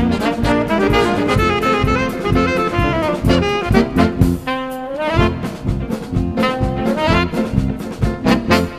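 Live band playing upbeat jazz, with trumpet and trombone over a drum kit keeping a steady beat, and a rising pitch slide about halfway through.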